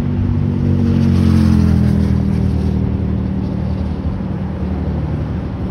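A motor vehicle passing by: its engine grows louder to a peak about a second and a half in, then drops slightly in pitch and fades as it moves away. Wind buffets the microphone throughout.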